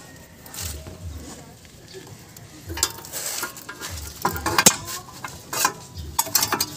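Metal clinks and scraping as a Mando front brake caliper is handled and slid back over the disc rotor, with several sharp clanks in the second half.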